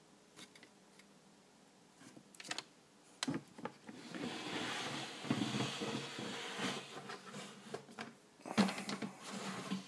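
Handling noise from a plastic Sterilite snake tub in a Vision rack being worked loose and slid out. After a quiet start come a few sharp clicks, then a stretch of uneven rustling and scraping, and a louder knock near the end.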